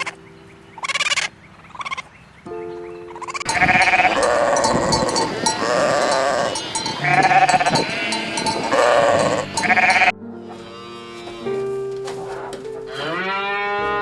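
Farm animal bleating: about four loud, drawn-out bleats in a row, from about three and a half to ten seconds in, over steady background music. A short yip comes in the first second or so, and a long rising-then-falling call comes near the end.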